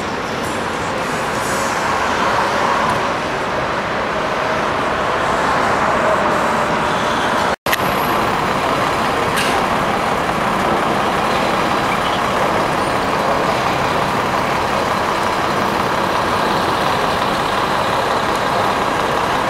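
Steady city street traffic noise, with vehicles and a double-decker tour bus running past. The sound drops out for an instant about seven and a half seconds in.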